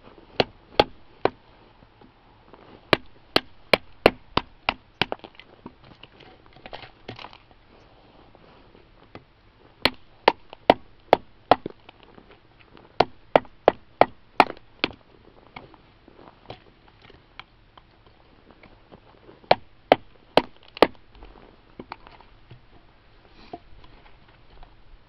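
Hammer blows on the spine of a G-10 and titanium composite knife, driving the blade down through a piece of wood on a chopping stump. The sharp knocks come in quick runs of three to six, with pauses between the runs.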